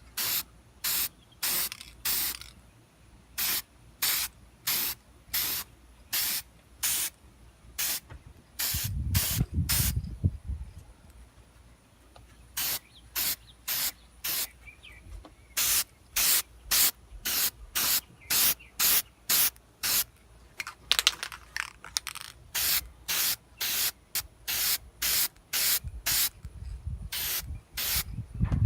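Aerosol spray-paint can sprayed in many short, even bursts of hiss, roughly one or two a second with a couple of brief pauses, as a second coat goes onto a headlight housing. A brief low rumble comes in about nine seconds in.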